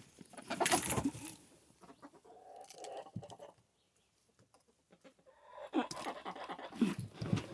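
A hen sitting on eggs clucking at being disturbed, in two short spells, about a second in and again near the end, with scratchy rustling between the calls.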